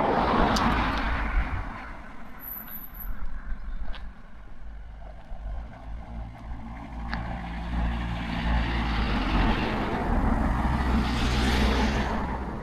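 Motor vehicles on a road. One passes with a rush of tyre noise at the start. Then a low engine hum builds, and a second vehicle passes close near the end.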